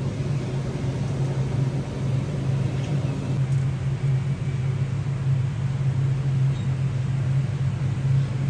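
Steady low rumbling hum of a charcoal roasting drum with its fire burning high.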